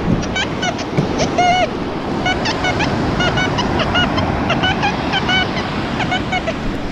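Waves washing up on a sandy beach, with birds calling throughout in many short, repeated chirps.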